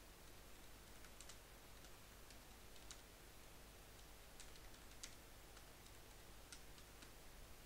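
Faint computer keyboard keystrokes, a dozen or so irregular clicks as a search query is typed, against near-silent room tone.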